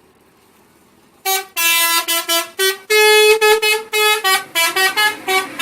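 A bus's 'telolet' musical horn playing a quick tune: a rapid run of short, loud horn notes jumping between pitches, starting about a second in.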